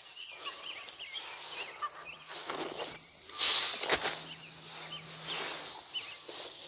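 Small birds chirping in the background while brush rustles against the phone as it pushes through branches; the rustling is loudest a little past halfway, ending in a sharp click.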